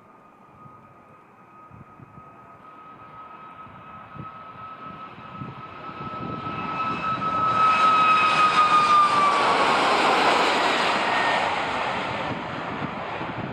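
Boeing 737 MAX 8-200 jet with CFM LEAP-1B turbofans passing close by: a building whine and roar that is loudest about eight to ten seconds in, with the whine's pitch dropping as the aircraft goes past, then easing off.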